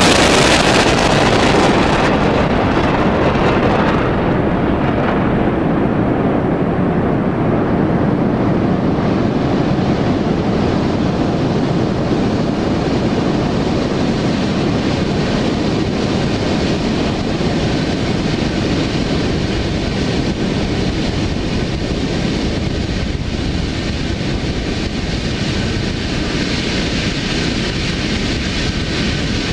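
Roar of a Soyuz rocket's engines after liftoff, heard from the pad as the rocket climbs away. Its hiss dies out over the first few seconds, leaving a steady low roar.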